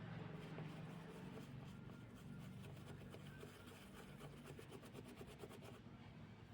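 Faint rapid scratching, several strokes a second, stopping shortly before the end, over a low steady hum.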